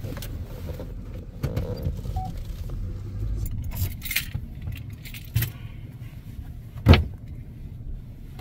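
Chevrolet pickup truck driving over beach sand, heard from inside the cab: a steady low rumble with light rattling and jangling. A sharp knock comes about seven seconds in.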